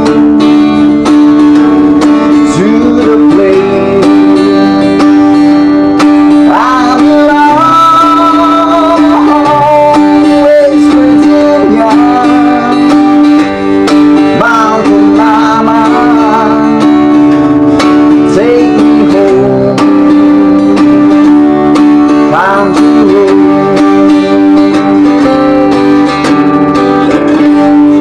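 A 3/4-size Cowboy acoustic guitar playing a tune, with a low note ringing steadily underneath a melody whose notes bend and slide.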